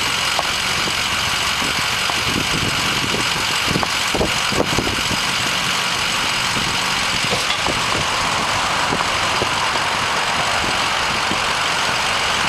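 Pickup truck engine idling steadily, with a few light knocks about four to five seconds in.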